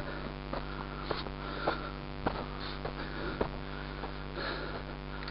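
Close breathing and sniffing by a person near the microphone, with light knocks about every half second for the first three seconds or so, over a steady electrical hum.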